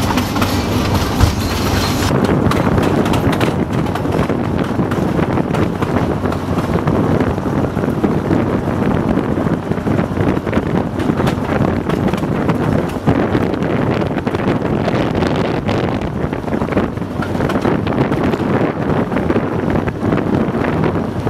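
TU4 narrow-gauge diesel locomotive under way, heard from its cab: the V12 diesel running steadily under the rattle and irregular clicks of the wheels on the track. A brighter hiss stops about two seconds in.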